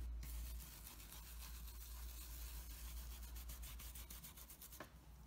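Stiff stencil brush scrubbing back and forth over a plastic stencil, burnishing gilding flakes into its holes: a faint, fast, scratchy brushing.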